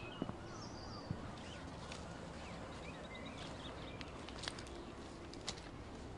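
Footsteps along an overgrown dirt path, with a few sharp clicks and snaps, over steady outdoor background noise. Small birds twitter briefly near the start and again around three seconds in.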